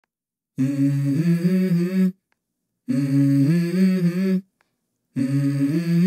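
A low voice humming the same short melody three times, each phrase about a second and a half long and stepping up in pitch, with dead silence between: the unaccompanied opening of a song.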